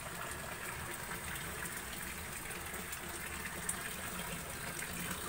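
Steady rush of water running from a hose into a shallow concrete tank.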